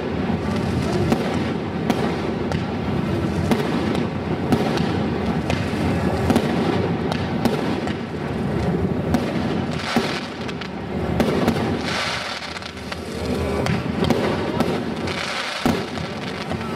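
Aerial fireworks going off in quick succession: a dense stream of sharp pops and bangs, easing briefly about twelve seconds in.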